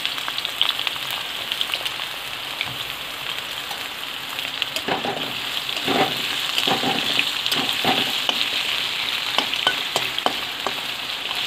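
Potato pieces frying in hot oil in a kadai: a steady sizzle with fine crackling. A few short clattering knocks come about halfway through.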